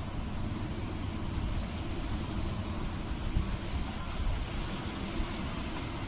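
Steady low rumble with a light hiss of outdoor background noise, with no animal calls.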